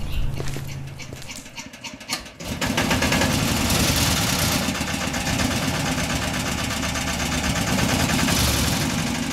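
A low hum fades out and a few sharp clicks follow. About two and a half seconds in, a machine starts and runs steadily with a rapid, even rattle.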